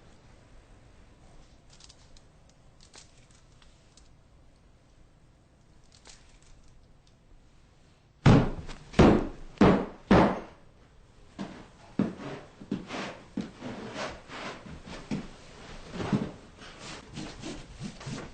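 Heavy blows pounding on a carpeted floor, flattening a lump under newly laid carpet: four hard thumps about half a second apart, then a run of lighter, irregular knocks.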